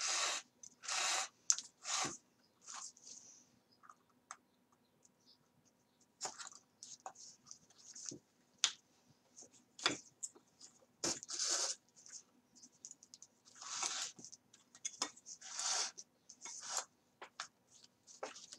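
Thread pulled through the punched holes of paper book signatures and the paper pages being handled, making short, irregular scratchy rasps and rustles with pauses between them.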